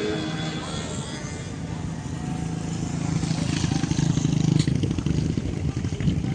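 A small engine drones past, swelling to its loudest about four and a half seconds in and then easing off.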